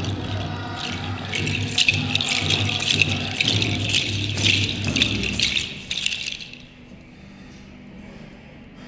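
A rattle shaken in a quick, steady rhythm that stops about six and a half seconds in.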